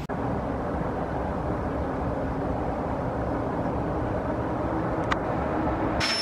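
Steady city traffic noise with a faint click about five seconds in, then an abrupt cut near the end to a vacuum cleaner running with a high whine.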